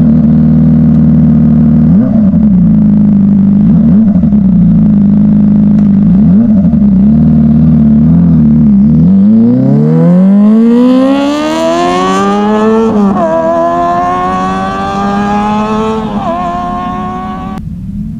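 Kawasaki ZX-25R's 250 cc inline-four with an aftermarket full-system exhaust, running loud with a few short throttle blips. It then pulls away hard, its pitch rising steeply through the revs and dropping at each upshift, about 13 and 16 seconds in, and it fades as the bike rides off.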